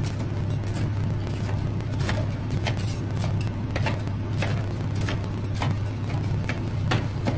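Two metal spatulas chopping and tapping on the steel cold plate of a rolled-ice-cream machine, sharp irregular clicks a few times a second, over the steady low hum of the machine's refrigeration.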